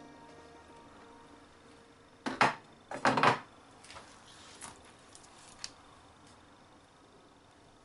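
A ceramic plate clattering as it is moved and set down on a wooden cutting board: two short clatters a little after two and three seconds in, then a few faint knocks and taps.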